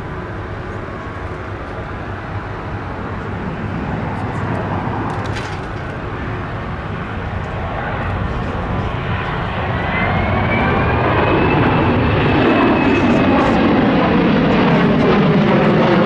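Jet noise from the Boeing P-8 Poseidon's two CFM56-7 turbofans in a flying display, growing steadily louder as it comes overhead. A whine rises in pitch about ten seconds in, and the sound is loudest near the end.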